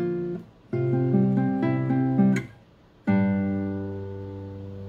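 Classical guitar played fingerstyle: two short picked phrases, each cut off by a brief stop, then a chord about three seconds in that rings out and slowly fades.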